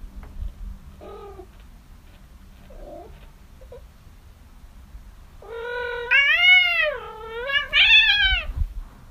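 Kitten meowing: a few faint short mews, then two loud, long drawn-out meows that rise and fall in pitch in the second half.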